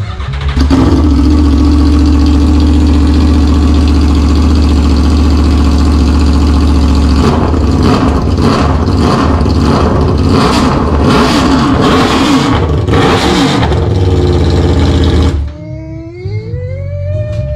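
Aprilia Tuono V4 1100's V4 engine running very loud through a straight pipe with no muffler. It fires up just after the start and idles steadily for several seconds, then is revved in a run of quick throttle blips before it shuts off suddenly near the end.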